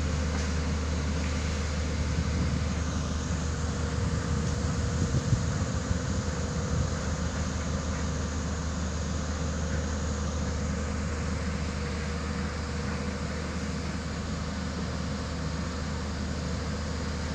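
Single-drum vibratory roller compactor running on a dirt road, its diesel engine and drum giving a steady low hum, with a few sharper knocks about five to seven seconds in.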